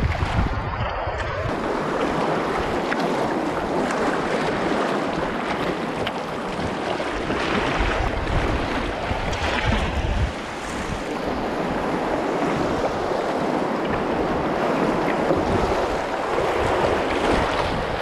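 River rapids rushing and splashing against a sea kayak's bow, with wind buffeting the microphone in gusts.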